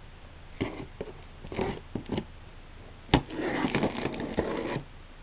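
A utility knife cutting open a cardboard shipping box along its taped seam: a few light knocks and taps, a sharp click about three seconds in, then about a second and a half of scratchy slicing through the tape and cardboard.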